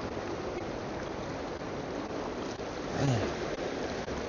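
River water rushing steadily, with a brief low falling-pitched sound about three seconds in.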